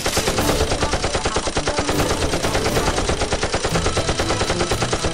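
Continuous rapid automatic-gunfire sound effect, machine-gun shots in quick even succession, laid over a drum-fed Nerf blaster being fired.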